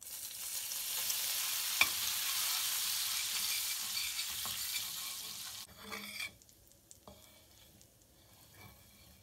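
Butter, oil and flour sizzling in a hot stainless steel frying pan as they are stirred with a metal spoon: a roux starting to cook. There is one sharp clink about two seconds in, and the sizzle stops abruptly about six seconds in, leaving only faint taps.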